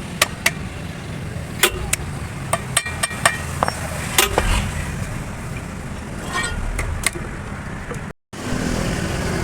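A series of sharp metallic taps and clinks, some ringing briefly, over a steady low rumble: hand tools working on metal drive-shaft parts. Near the end the sound drops out for a moment and comes back as a steadier noise.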